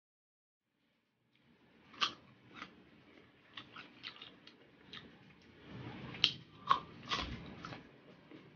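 Close-miked eating sounds: wet chewing with irregular sharp mouth clicks and lip smacks, a few a second, starting after about a second of silence.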